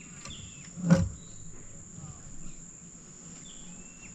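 Steady high-pitched insect drone with a few short bird whistles, and one sharp, loud thump about a second in.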